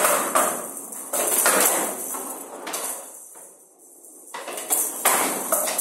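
A Showdown rally: the ball, with metal beads inside, rattles as it rolls across the wooden table, with a string of sharp knocks as the bats strike it and it bounces off the table's side walls. There is a short lull about three to four seconds in before the knocks resume.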